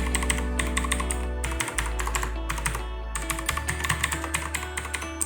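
Rapid typing on a mechanical gaming keyboard with Outemu Blue clicky switches, a dense stream of key clicks, with background music playing.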